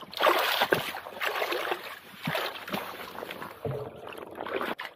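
Water sloshing and splashing as rubber boots wade through a shallow rock pool, in a run of uneven splashes.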